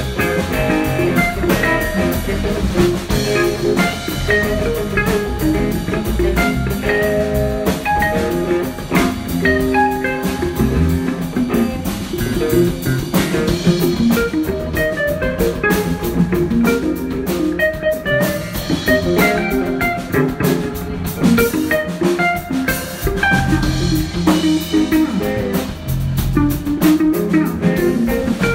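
Music: a band with guitar and a drum kit playing a blues-rock groove with a steady beat.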